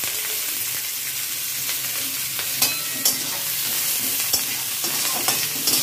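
Chopped onion, ginger and garlic sizzling steadily in hot oil in a steel kadai. A steel spatula stirs them, scraping and clicking against the pan a few times in the second half.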